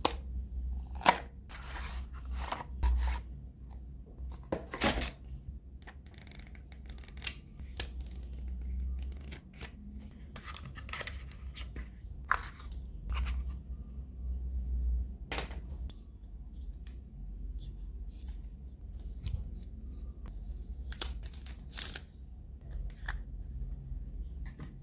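Packaging of a pair of Soundcore R50i NC earbuds being opened and handled, with scattered sharp clicks, tearing and rustling over a steady low hum.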